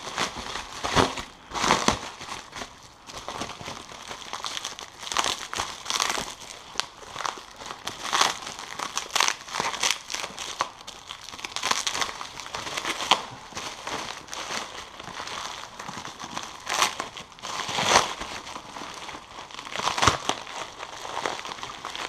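Packaging being handled and unwrapped: irregular crinkling and rustling with sharp crackles as the new exhaust can is taken out of its wrapping.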